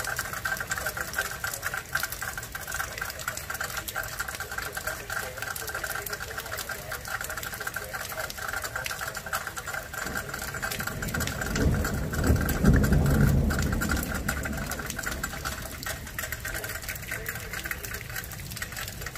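Heavy rain pattering steadily in a thunderstorm. A low rumble of thunder swells up a little past the middle and dies away over a couple of seconds.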